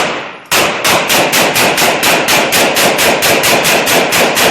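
Automatic gunfire: one long, rapid burst of evenly spaced shots, about seven a second, starting about half a second in.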